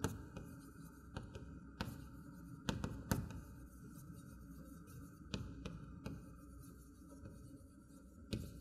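Chalk writing on a chalkboard: scattered light taps and short scratches, irregularly spaced, as a line of words is written.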